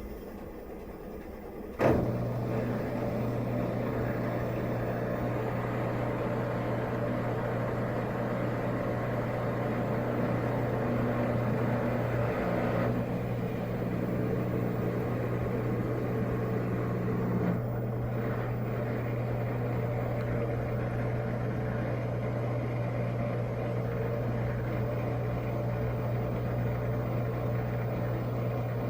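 Washing machine motor switching on with a click about two seconds in, then running with a steady low hum.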